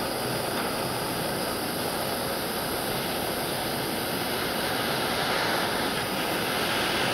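MAPP gas hand torch burning with a steady hiss as its flame heats an aluminum joint for brazing.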